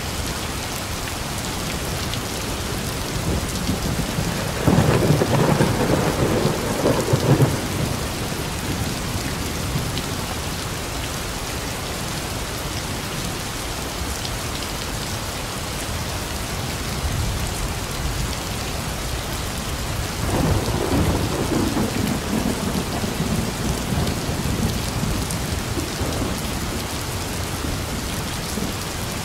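Steady heavy rain with two rolls of thunder: a louder one about five seconds in that lasts a few seconds, and a longer, softer rumble from about twenty seconds in.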